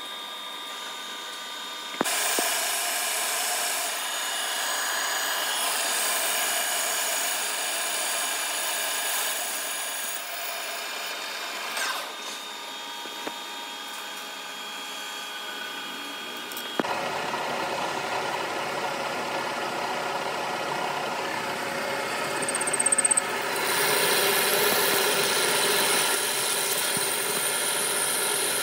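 Metal lathe running steadily, its noise carrying a few steady whining tones. The sound jumps abruptly several times, and near the end a steel workpiece is being turned under coolant.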